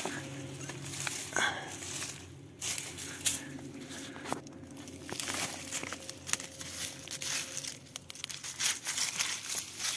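Dry soil and grass crunching and rustling as they are worked through by hand, a run of irregular scrapes and crackles.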